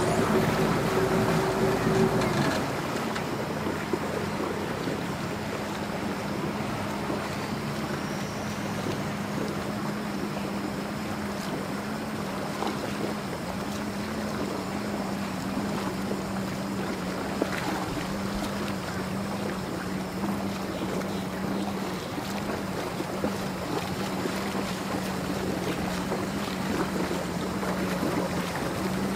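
Bayliner runabout's engine running a little higher for the first couple of seconds while backing off the trailer, then easing back to a steady idle as the boat moves off.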